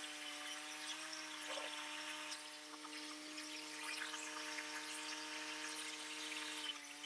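Gasoline-engine sawmill running steadily while cutting a knotty pine log: a steady engine tone with a hiss over it. The engine note dips briefly about a second in and again near the end.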